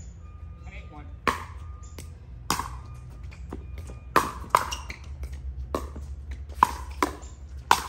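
Pickleball paddles hitting a plastic pickleball back and forth in a rally: sharp pops, about eight of them, coming quicker in the second half, over a steady low rumble.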